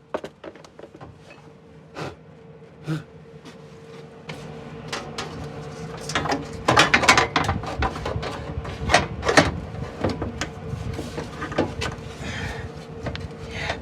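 MIG welder plug welding sheet steel: a few metallic clicks and knocks, then irregular crackling that builds and is densest in the middle, over a steady hum.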